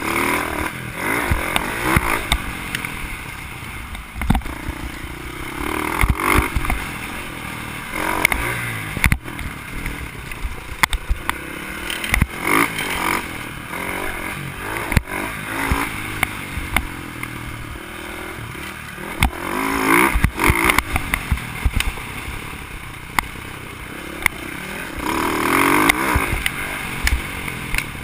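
Dirt bike engine heard from on board, revving up and down with the throttle in surges every few seconds while riding a rough trail. Short knocks and rattles from the bike run through it as it hits bumps.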